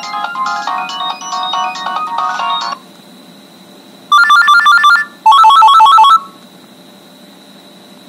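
Nokia 3650 ringtone previews from the phone's speaker as the tone list is scrolled. A many-note MIDI melody cuts off about three seconds in. After a short pause come two loud bursts of rapid electronic beeps, the second one lower in pitch.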